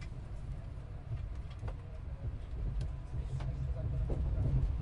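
Inside a passenger train carriage: a steady low rumble of the train running along the track, with scattered light clicks and rattles, growing louder near the end. Faint passenger voices come in near the end.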